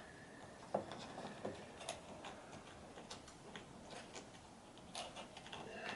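Faint, irregular small clicks and taps of the retractable screen housing's parts (tube, washer, end cap) being handled and fitted together.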